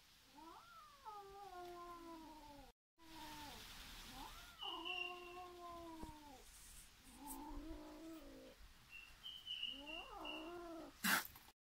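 A kitten yowling defensively at a dog: four long, drawn-out calls, each rising and then sagging in pitch. There are a few short high chirps in between, and a sharp click comes near the end.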